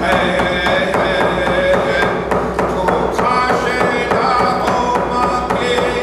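A man sings a ceremonial song while striking a hand-held frame drum with a stick in a steady, even beat of about three strokes a second.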